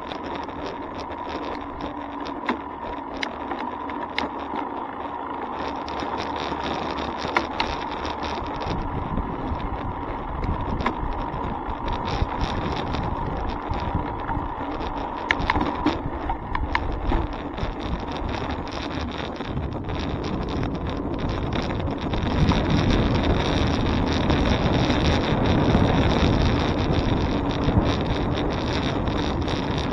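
Riding noise picked up by a bicycle's handlebar camera: steady wind on the microphone and tyre-on-road noise, with frequent small clicks and rattles from bumps in the pavement. The noise grows louder and heavier about two-thirds of the way through.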